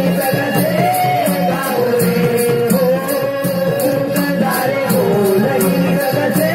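Indian folk-theatre music: a wavering melody over a hand-played two-headed barrel drum, with small cymbals marking a steady beat about four times a second.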